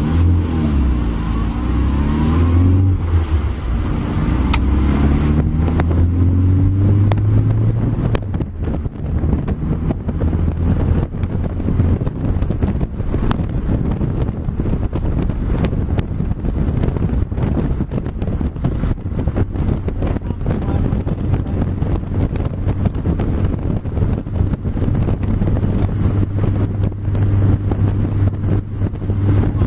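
Car engine accelerating hard from a pull-away, rising in pitch through several gear changes. It then settles into running at speed, buried under heavy wind buffeting on the microphone and road noise.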